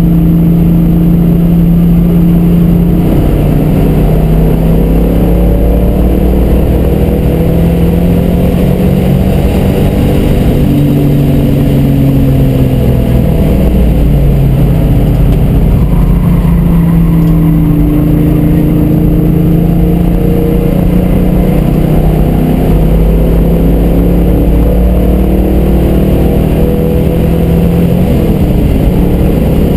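1967 Shelby GT350's 289 V8 running hard on track, heard from inside the cabin. Its pitch repeatedly falls and climbs again as the car lifts for corners and accelerates out of them.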